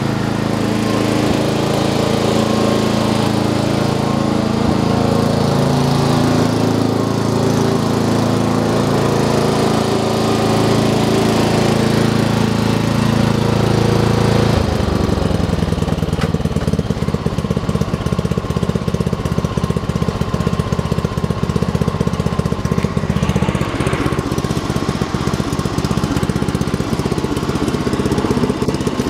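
Murray 40702X92C lawn tractor's engine running as the tractor is driven up. About halfway in the sound changes from a steady drone to a rapid, even putter.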